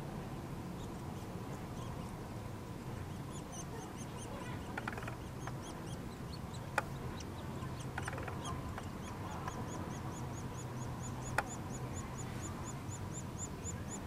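Nuttall's woodpecker nestlings begging from inside the nest cavity: a rapid series of high chirps, scattered at first and then steady at about four a second from about the middle on, the chicks calling for food as an adult arrives at the hole. Two sharp clicks stand out, about seven and eleven seconds in.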